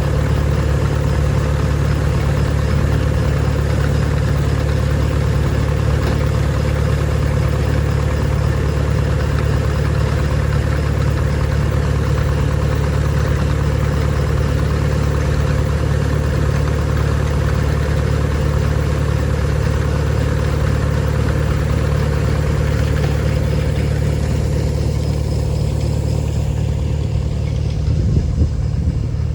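Feed grinder grinding chicken and quail feed, running steadily with a deep even hum under a dense rushing noise. The higher rushing part thins out about 25 seconds in.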